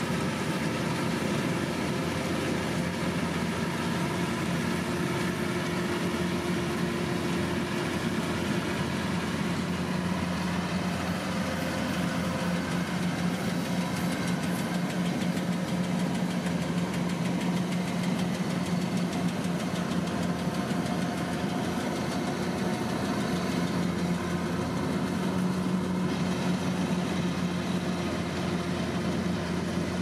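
Kubota DC-108X combine harvester running steadily as it cuts rice: a constant diesel engine drone at an even pitch.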